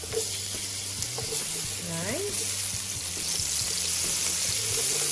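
Sliced onions sizzling in hot oil and pork-chop drippings in a non-stick frying pan as they are sautéed and moved about with tongs. The sizzle gets louder in the second half.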